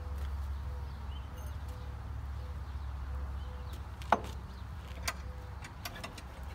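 A few short, sharp clicks and light knocks of metal being handled on a welding cart top, the strongest about four seconds in, over a steady low hum; the angle grinder is not running.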